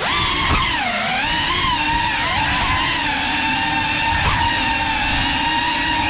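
GEPRC Cinelog 35 cinewhoop's brushless motors and ducted propellers whining, the pitch dipping and then climbing again with throttle about a second in, then holding fairly steady.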